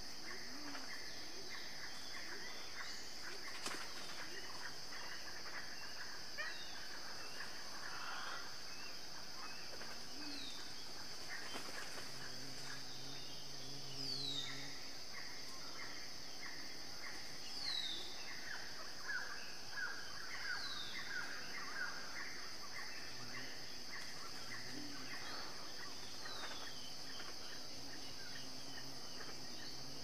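Forest ambience: a steady, high-pitched insect drone, with birds calling over it, including short falling whistles every few seconds.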